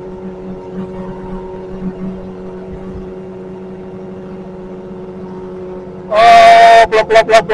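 Kawasaki Ninja sport bike engine running steadily at cruising speed. About six seconds in, much louder music with a male singer cuts in.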